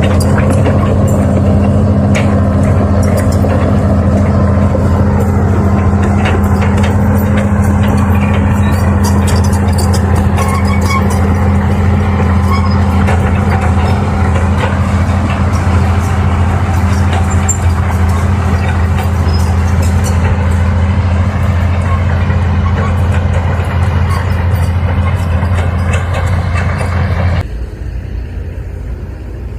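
Heavy diesel engine running steadily at a constant pitch, with scattered metallic clanks and rattles; the sound cuts off sharply to a quieter level about two seconds before the end.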